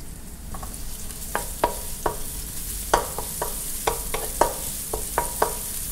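Sliced garlic and julienned ginger sizzling gently in oil in a nonstick wok. A wooden spatula stirs them, with repeated sharp taps and scrapes against the pan.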